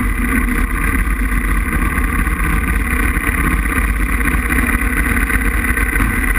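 Aprilia RXV 550 V-twin motorcycle engine running at a steady speed.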